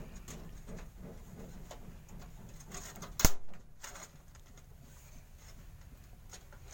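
Small clicks and knocks of a motherboard being handled into a computer case, with one sharp, loud click about a third of the way in. A low, repeated cooing-like pulsing sits in the background through the first half.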